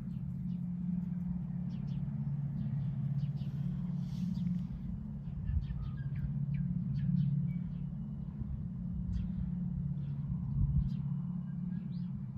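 Birds chirping in short, scattered high calls over a steady low rumble.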